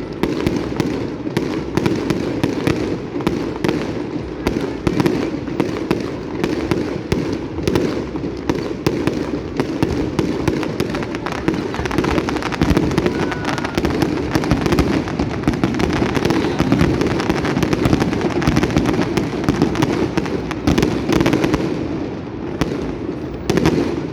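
Fireworks display: a dense, continuous barrage of shell bursts and crackling cracks with a rolling low rumble, thinning out near the end.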